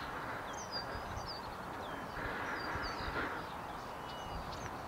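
Small songbirds chirping and whistling in short high notes, several a second, some sliding down in pitch, over a faint steady outdoor hiss.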